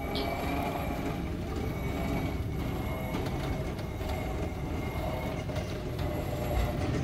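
Electric drive motor of a motorized housekeeping cart running, the cart rolling forward on its wheels across a hard floor: a steady hum over a low rolling rumble.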